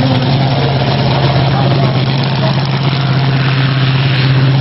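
Bigfoot 17 monster truck's engine running at a low, steady idle as the truck rolls slowly, an even low drone that does not rise or fall.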